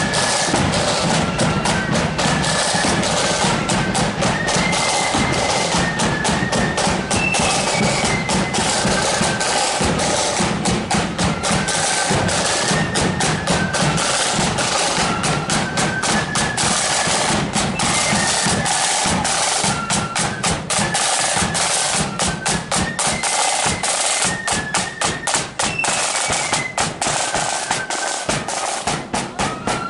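Marching flute band playing a tune: flutes carry the melody over rapid side-drum rolls and a steady bass drum beat.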